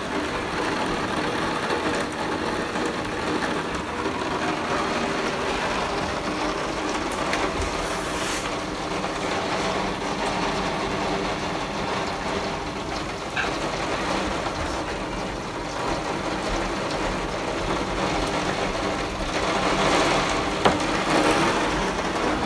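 Steady rushing noise of a severe thunderstorm, with a low hum under it, swelling about nineteen seconds in and peaking in one sharp crack near the end.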